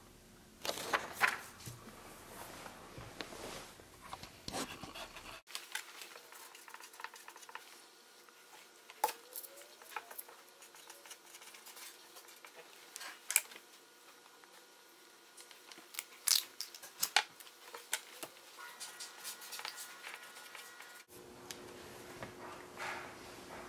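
Marker pen scratching and tapping on paper in short, irregular strokes, with scattered sharp clicks; the sound breaks off abruptly a few times.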